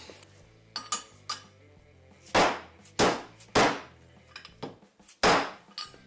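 Mallet blows on a wheel-bearing race being driven into the bore of an aluminium Jaguar IRS hub carrier. A few light taps come first, then four heavy blows, three of them about half a second apart and the last near the end. The race is going in crooked.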